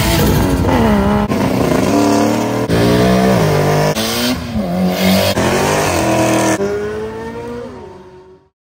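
Car engines revving hard and accelerating, in a quick run of short clips of different cars spliced one after another, the engine pitch climbing and dropping with each throttle blip and shift. It fades out near the end.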